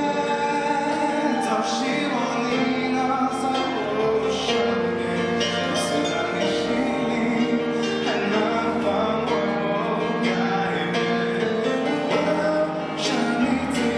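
A man singing a slow pop song into a microphone, accompanied by a Roland digital piano, both amplified through a PA.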